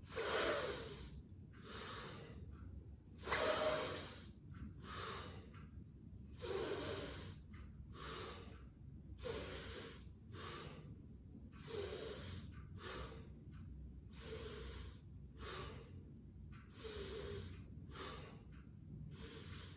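A man doing bhastrika pranayama: deep, forceful breaths drawn in and pushed out through the nose in a steady rhythm. There is one stroke about every 0.7 s, and the first few are the loudest.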